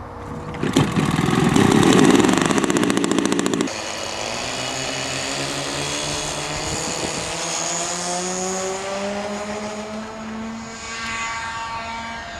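Radio-controlled model airplane's engine running in flight, its pitch climbing steadily for several seconds and then holding. A loud rushing noise covers it for about three seconds near the start.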